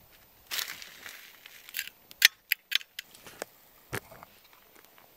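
A plastic bag rustling as loose tea is shaken into an enamel mug. Then a spoon clinks sharply against the mug three times in quick succession, followed by a couple of lighter taps and a dull knock about four seconds in.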